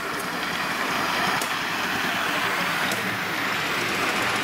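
Live steam model locomotive hissing steam as it pulls away and passes close by. The hiss is steady and loud, swelling over the first second.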